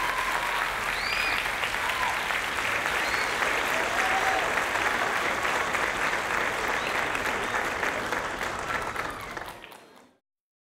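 Audience applauding, with a few shouted cheers. The applause fades out quickly near the end.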